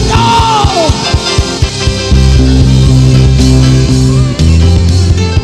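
Live worship band playing with no singing: held bass notes that change every second or two under guitar chords, with a brief sliding note at the start.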